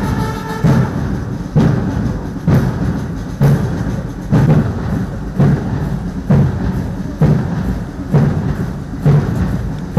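Military band's drums beating a steady marching time, about one heavy beat a second. The band's tune dies away in the first second, leaving mainly the drum beat.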